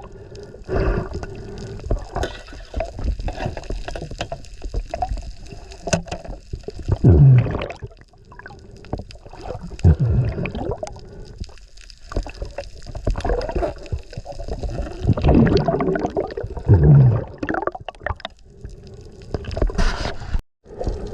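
Water gurgling and sloshing around a camera in the sea, in irregular surges with scattered small clicks; the sound cuts out briefly near the end.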